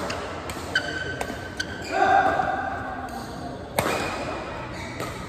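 Badminton rackets striking the shuttlecock during a fast doubles rally: several sharp hits a second or more apart, the loudest about four seconds in, ringing in a large hall.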